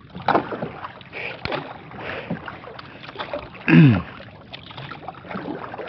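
Wooden paddle dipping and pulling through choppy water as a small outrigger canoe is paddled, with water splashing and lapping against the hull. About four seconds in, a short vocal sound falling in pitch is the loudest thing.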